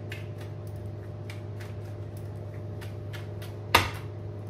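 Tarot cards being shuffled by hand: a run of soft, irregular card clicks, with one sharper snap near the end.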